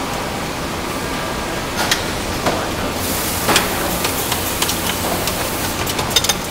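Steady factory-floor noise of an engine assembly line, with scattered sharp metallic clicks and clanks from tools and parts, several close together near the end.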